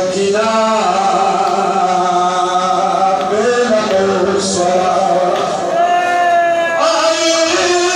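A man chanting a Pashto rubai, an elegiac Muharram quatrain, in a slow melody of long held notes with gentle slides between them.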